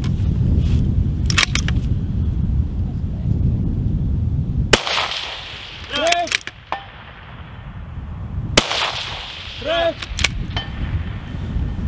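Two rifle shots fired prone, about four seconds apart, each a sharp crack followed about a second and a quarter later by a faint ringing ping of the bullet striking a distant steel target. Wind rumbles on the microphone before the first shot.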